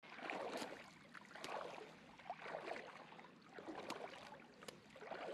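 Shallow water sloshing and lapping in irregular swells, with a few sharp clicks; a small splash breaks the surface about four seconds in.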